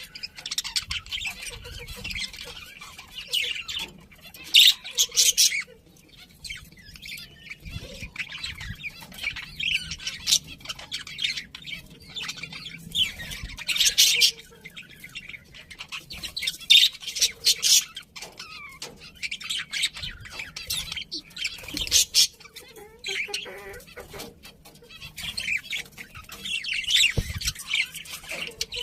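Budgerigars chattering, with rapid high chirps and squawks in bursts every couple of seconds.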